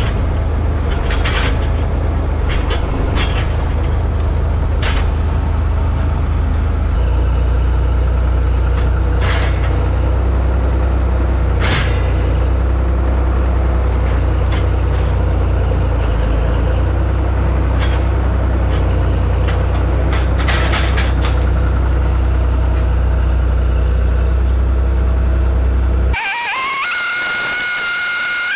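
Farm tractor engine running steadily while it moves a heavy old scrub roller, its pitch shifting once about a quarter of the way through, with occasional sharp clanks. Near the end it cuts off abruptly and a quieter sound with a few steady high tones takes over.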